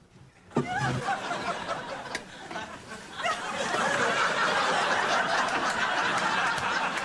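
Studio audience laughing, the laughter swelling into a dense, sustained crowd sound about three seconds in.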